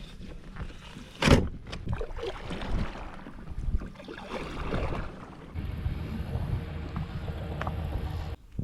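Gear being handled aboard a fishing kayak: a sharp loud knock about a second in, then smaller knocks and rustling, with a low steady hum in the second half that stops just before the end.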